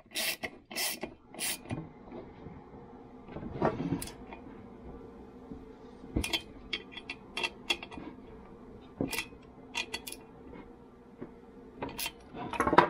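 Scattered metallic clinks and scrapes as a chainsaw muffler and its metal cover are fitted and the muffler nuts are turned with a socket wrench, with a few evenly spaced rasping strokes in the first second and a half.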